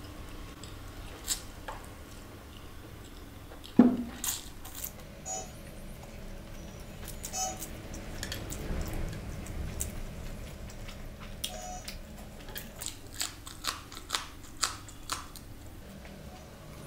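Close-up eating sounds: chewing and slurping instant noodles, with wet mouth clicks and smacks. A sharp knock about four seconds in is the loudest sound, and a quick run of clicks comes near the end.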